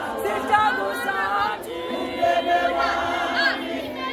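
A large group of women singing together unaccompanied, many voices in chorus.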